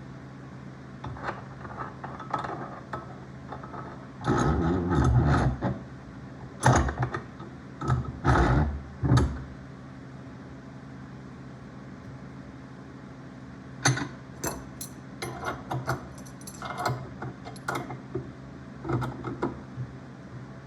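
Brass pipe fittings and small hand tools being handled: scattered metal clicks and clanks, with louder clattering bursts between about 4 and 9 seconds in and a run of lighter clicks from about 14 seconds in.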